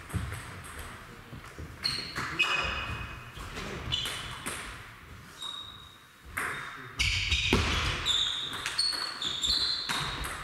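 Table tennis ball clicking off bats and the table, with scattered hits early and a quick run of hits in the second half. The clicks ring briefly in the echo of a large sports hall.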